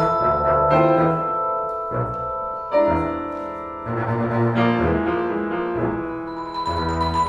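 Live jazz group playing: piano, double bass and vibraphone, with long held, ringing notes over a low bass line.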